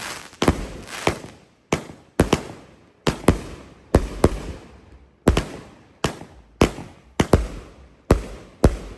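Consumer firework cake firing a rapid run of shots, a sharp bang about twice a second at uneven spacing, each dying away in a short tail.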